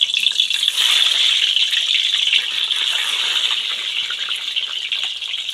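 Peeled boiled eggs frying in hot mustard oil: a steady sizzling hiss with small crackles that slowly fades.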